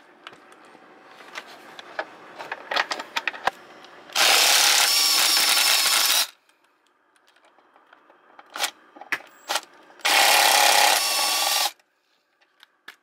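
Cordless impact driver hammering out the seat-belt anchor bolts (T50 Torx): two bursts of about two seconds each, several seconds apart. Small clicks and knocks of the socket against the bolts come before and between them.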